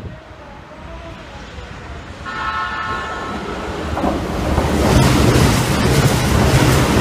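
A Keikyu express train sounds a steady horn for about a second as it approaches. It then passes through the station at about 120 km/h: a rush of wheels and air builds into a loud rumble as the cars sweep by close by.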